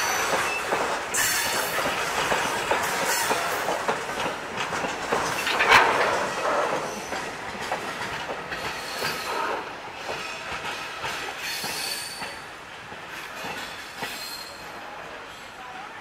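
Freight train wagons rolling past on steel wheels, clattering over the rail joints with a faint high wheel squeal now and then. The clatter is loudest about six seconds in, then fades steadily as the end of the rake moves away.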